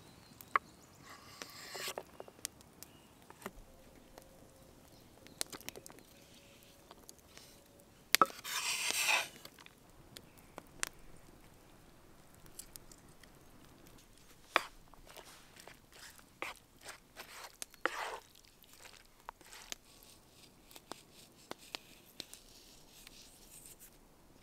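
Chef's knife chopping and scraping soft avocado and tomato on a wooden cutting board: scattered light knocks, with one louder scraping rush about a third of the way in.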